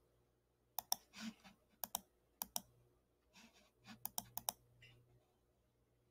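Computer mouse button clicking: about half a dozen quick clicks at irregular intervals, each a close pair of press and release.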